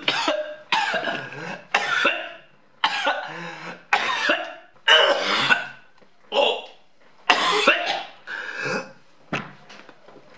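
A man coughing hard in a long fit, about a dozen harsh coughs roughly a second apart that grow weaker toward the end, set off by inhaling the smoke of a cigarette rolled with oregano.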